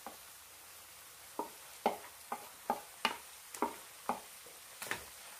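Metal spoon scraping and tapping against a ceramic bowl in a run of short strokes, about two a second, starting about a second and a half in, as scrambled egg is pushed into the pan. Tomatoes fry with a faint sizzle underneath.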